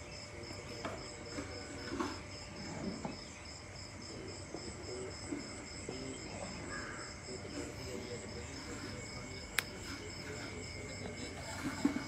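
Insects chirping in a steady, pulsing high trill, with one sharp click late on.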